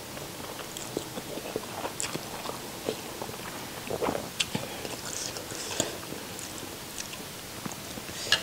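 Close-miked chewing of soft rice noodles: wet, irregular mouth clicks and smacks, with a few short hissing slurps along the way.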